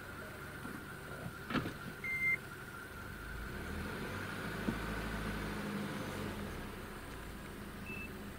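A vehicle engine idling low under a steady high hum, the low rumble swelling in the middle; a sharp click about a second and a half in, followed by a short high beep, and a fainter beep near the end.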